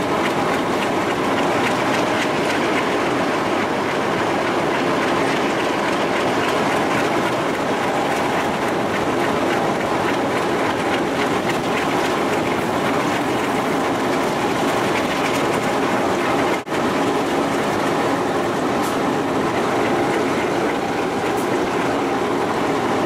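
ALCO 251 V12 diesel prime mover of an MLW FPA-4 locomotive running steadily and loudly, heard from the locomotive's roof, with the clatter of wheels on the rails.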